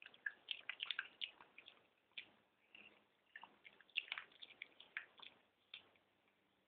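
Chihuahua chewing his diet kibble: faint, irregular clicks and crunches in short clusters.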